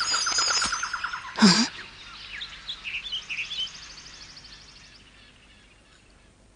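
Cartoon forest ambience of bird chirps and calls. A fast repeated call stops a little over a second in, and a short sharp sound follows. Faint chirps and a rapid high trill then fade away toward the end.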